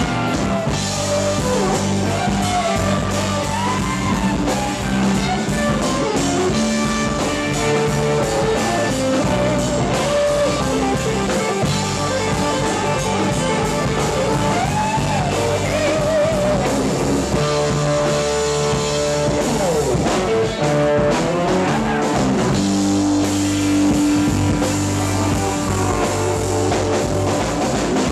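Live rock band playing: guitars, keyboard and drums, with a lead line that bends and slides in pitch.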